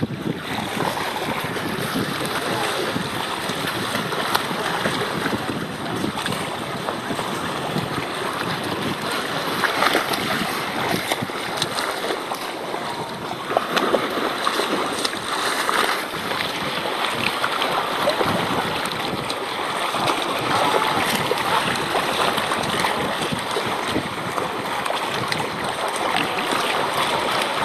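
Wind buffeting the microphone over choppy sea, with water lapping and a few sharper splashes.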